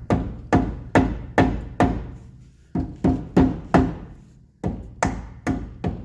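Rubber mallet tapping a metal grease dust cap onto a car's front wheel hub to seat it: about a dozen firm blows, two or three a second, in three short runs with brief pauses between.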